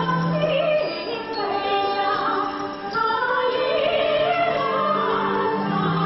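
A woman singing a melodic song with traditional Chinese instrumental accompaniment, in the style of Tang Dynasty court music.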